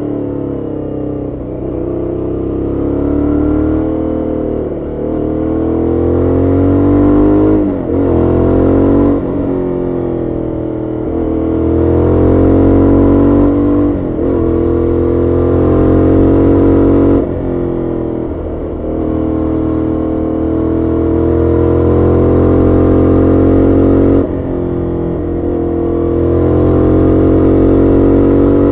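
Aprilia Shiver 750's stock 90-degree V-twin engine running under way, heard from on the bike. Its note rises and falls with the throttle, and every few seconds the pitch and loudness drop sharply.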